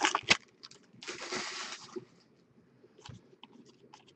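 A foil trading-card pack crinkles as it is torn open, then a steady rustle for about a second as the stack of cards slides out of the wrapper. A few faint ticks follow as the cards are handled.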